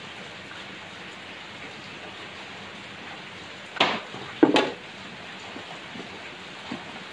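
Steady rain hiss, with two short knocks close together about four seconds in as a hand saw is laid down on a plywood sheet.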